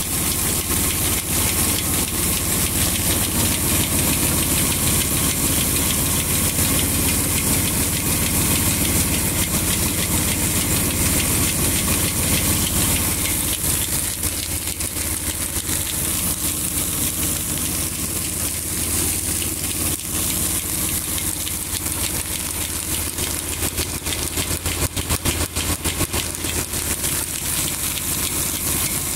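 Stone grain mill running steadily, grinding feed grain into meal for cattle: a continuous low hum with a grinding hiss, and a fine crackle of grain through the stones that grows thicker in the second half.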